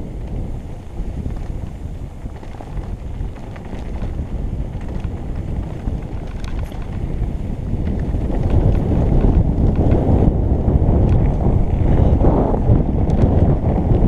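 Wind rushing over a helmet camera's microphone while a mountain bike rides a rough gravel track, with tyre rumble and scattered clicks and rattles from stones and the bike. It grows louder about two-thirds of the way through.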